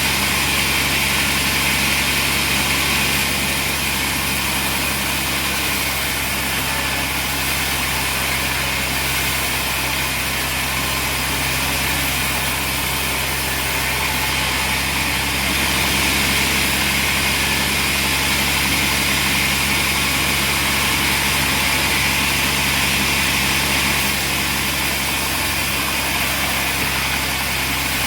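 Machinery running steadily with a constant low hum and hiss, unchanging throughout.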